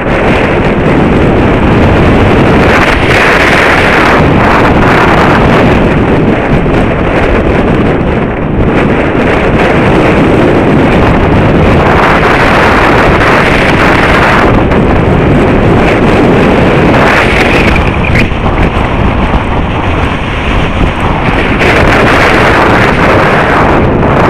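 Strong wind buffeting the microphone: a loud, continuous rumbling rush that surges and eases every few seconds.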